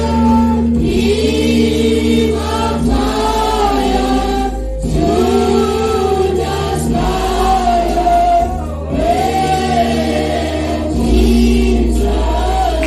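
A church choir singing a gospel song, with sustained low bass notes underneath that change every few seconds.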